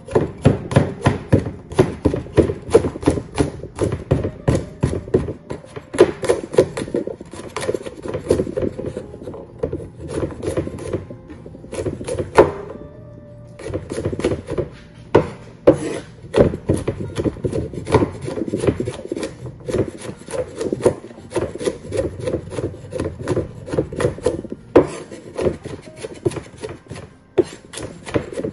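Cleaver chopping garlic on a wooden cutting board: quick, even strokes several times a second, with a short pause about halfway through.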